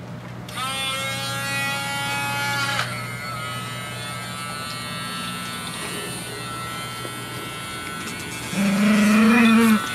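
Electric pet nail grinder switching on about half a second in and running with a steady whine, its pitch shifting slightly about three seconds in. Near the end a louder, low drawn-out vocal sound comes over it.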